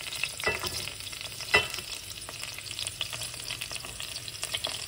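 Grated cauliflower rice sizzling as it is tipped from a glass bowl into hot oil in an aluminium pot, with the scrape and small clicks of a spatula pushing it out of the bowl. One sharp clink about a second and a half in.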